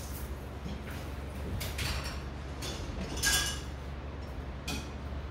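A few short knocks and clinks of kitchen things being handled, a couple with a brief metallic ring, about two to five seconds in, over a steady low hum.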